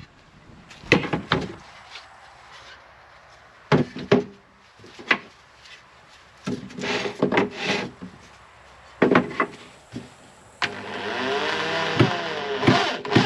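Pieces of wood being handled and knocked together in a series of sharp knocks and clatters. Near the end a power tool runs for about two seconds, its pitch rising and then falling.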